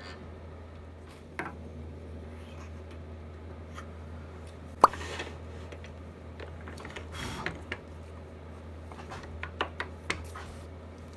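Handling noises as the pen mandrel and blank are taken off a wood lathe: one sharp click about five seconds in, scraping and rustling, then a few lighter clicks near the end, over a steady low hum.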